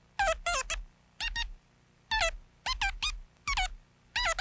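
Electronic chirping 'voice': a rapid string of short, high squeaks whose pitch warbles and drops, grouped like syllables, as a robot or alien talking in beeps.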